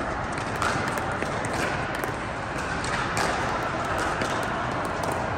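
Sharp pops of pickleball paddles striking plastic balls and balls bouncing on the hard court, several scattered a second or so apart, over the steady hum of the indoor hall.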